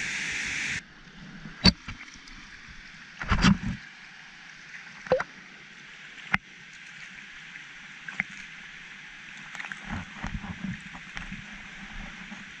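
Waterfall rushing steadily for under a second, then cutting off abruptly. After that, water sloshing and splashing close by as a swimmer floats and paddles through a calm canyon pool, with a few sharp splashes and a cluster of small ones near the end.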